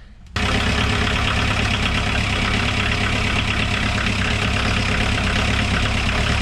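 Westerbeke marine diesel engine comes in suddenly about a third of a second in and then runs steadily at idle, on its first test run after sitting unused for months.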